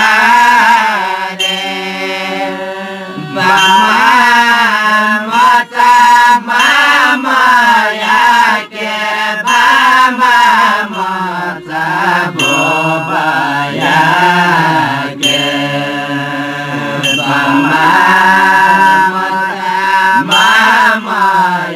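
Newar folk song sung by a group of singers in chorus, accompanied by harmonium, tah (small hand cymbals) and lalakhi barrel drum, the cymbal strikes cutting through the voices.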